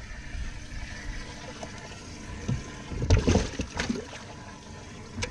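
Water sloshing in a bass boat's live well as fish are grabbed from it, with a burst of splashing about three seconds in.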